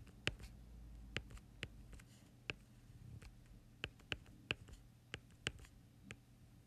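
Stylus tapping on a tablet screen while handwriting: a dozen or so light, irregularly spaced clicks as each pen stroke lands, over a faint low hum.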